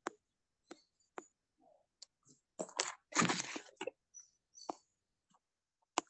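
Scattered short clicks and knocks, with a brief burst of rustling noise a little over halfway through, coming over a video call with silent gaps between.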